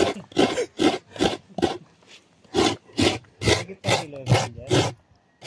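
A coconut half being scraped over the serrated metal blade of a wooden bench coconut grater (kudkuran): quick, regular rasping strokes, about two to three a second, with a short pause about two seconds in.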